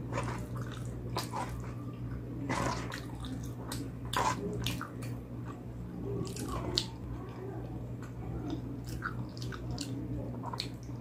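Wet chewing and slurping of food, with many scattered sharp mouth clicks and smacks, over a steady low hum.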